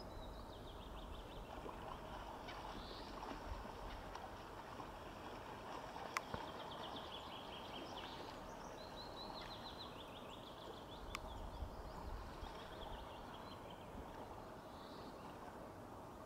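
Faint open-air ambience: a soft steady hiss with low wind rumble, over which a small bird sings short, rapid trills again and again, each phrase lasting one to two seconds.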